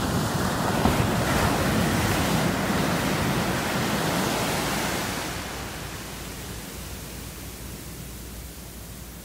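Small sea waves breaking and washing up the sand; the wash swells for the first five seconds and then fades away.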